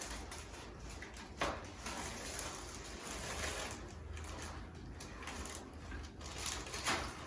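Two brief knocks about five and a half seconds apart over a steady low background hum.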